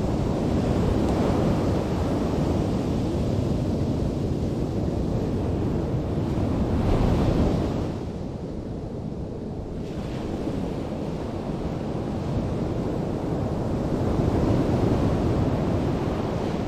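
Sea surf breaking and washing on a sandy beach, mixed with wind buffeting the microphone. The rush swells and ebbs, with a louder wash about seven seconds in, a lull just after, and another rise near the end.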